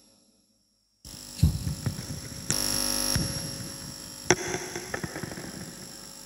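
Steady electrical hum and hiss from the karaoke sound system, which has noise from a worn microphone cable. There are bumps from handling the phone and a few sharp clicks. The sound cuts out completely for about the first second, where the phone recording dropped out.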